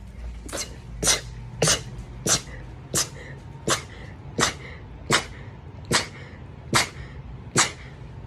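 A fast run of about a dozen short, sharp sneezes in quick succession, spaced a little under a second apart and gradually slowing.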